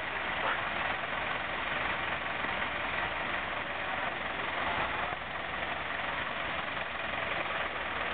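Steady engine running, an even rumble and hiss with no distinct events.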